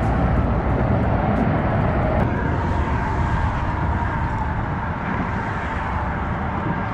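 Steady low outdoor rumble of wind buffeting the microphone and road traffic, with no distinct event standing out.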